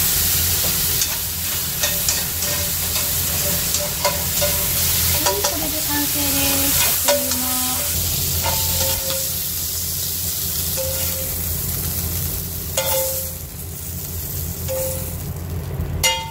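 Whelk and baby corn sizzling hard in butter and freshly added soy sauce in a hot frying pan, with tongs clicking and scraping against the pan as the pieces are tossed. The sizzle is loudest at first and dies down after about twelve seconds, followed by a few sharp clinks.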